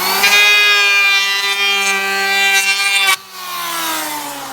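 Electric hand planer with spinning cutter blades running at full speed with a high whine and hiss. About three seconds in it is switched off and the whine falls in pitch as it winds down.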